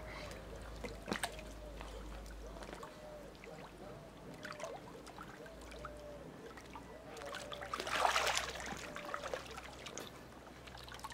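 Faint lapping and light splashing of pool water as a child paddles along in armbands, with a louder splash about eight seconds in.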